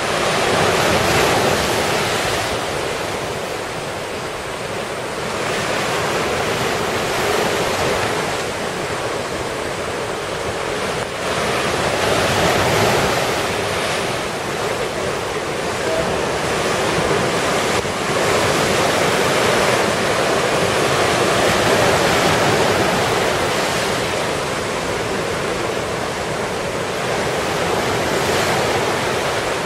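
Typhoon storm noise: a continuous rush of wind and water that swells and eases every several seconds.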